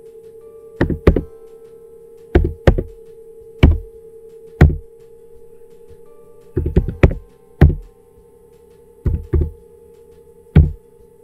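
Computer keyboard keystrokes typing an IP address: about thirteen sharp, loud key clicks in uneven groups. A steady hum runs underneath.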